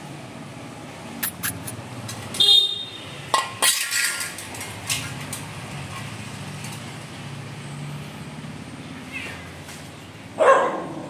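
Street noise: a steady low hum, with a cluster of short, sharp, loud sounds a few seconds in and one more near the end.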